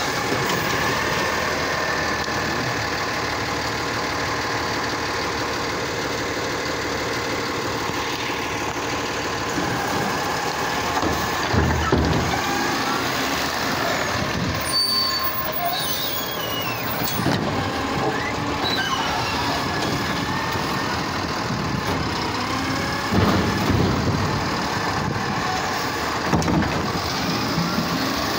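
Automated side-loader garbage truck at work: the diesel engine and hydraulics run steadily while the arm tips a wheelie cart into the hopper and lowers it, with a few loud knocks along the way, about a third and again four-fifths of the way through. Near the end the truck pulls away.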